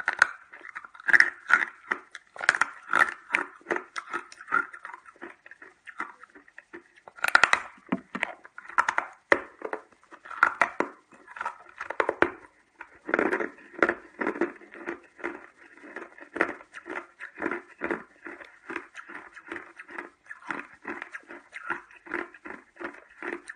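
Hard freezer ice being bitten off a block and chewed with the mouth close to the microphone: a quick run of sharp crunches, several a second, the loudest bites near the start and about seven seconds in.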